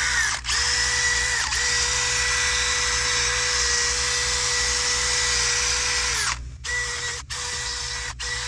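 Cordless drill spinning a soft wire wheel against a truck's wheel hub, scrubbing off old RTV sealant. A steady motor whine with a scratchy brushing hiss dips briefly twice in the first two seconds, runs on until about six seconds in, then comes in short on-off bursts.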